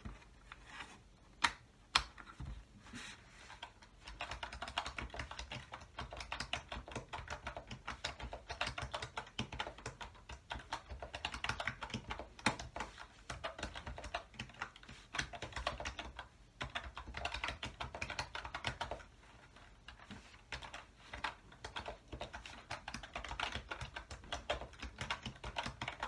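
Typing on a KeySonic 595 compact 75% keyboard with unusual tactile membrane switches: a few separate key presses at first, then a fast, dense run of key clicks, with brief lulls about two-thirds of the way through.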